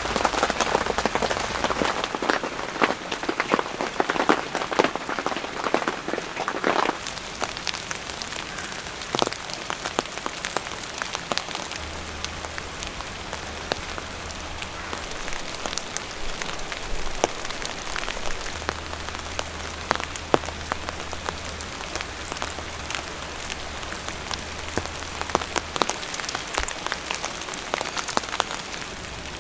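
Steady rain falling, with many separate drops striking a surface close by; it is heavier for the first several seconds and then settles.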